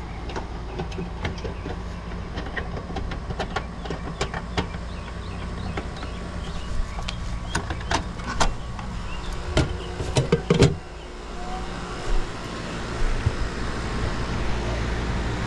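Sharp clicks and clacks of an outdoor air-conditioner disconnect box being worked by hand, the cover snapping shut, over a steady low hum. The loudest clacks come in a cluster just past the middle, and a low rumble builds near the end, taken for the compressor starting up.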